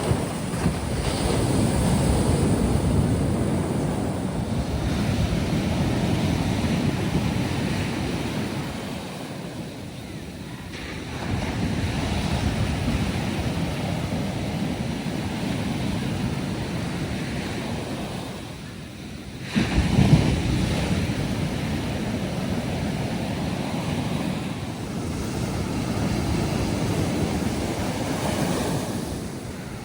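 Ocean surf on a sandy beach: waves breaking and washing in, the noise swelling and falling back every several seconds, with the loudest break about twenty seconds in.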